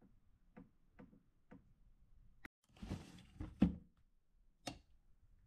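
Cardboard box and steel tape measure being handled: a few light clicks, then a short rustling scrape and a thump about three and a half seconds in, and one more click near the end.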